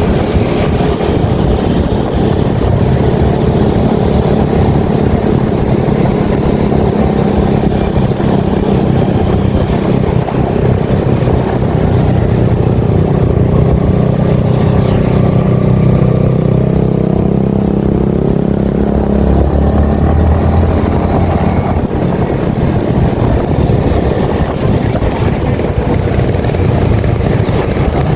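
Yamaha XSR155's single-cylinder 155 cc engine running steadily while the motorcycle is ridden, with the engine note dropping lower for a couple of seconds past the middle before picking up again.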